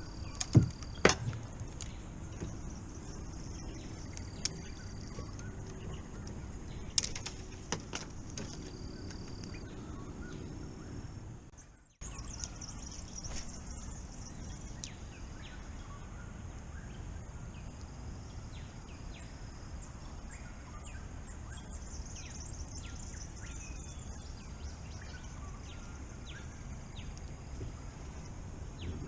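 Birds chirping and calling over a steady outdoor background, with a few sharp knocks near the start and again about seven seconds in. The sound fades out and drops briefly about twelve seconds in, then the birds and background resume.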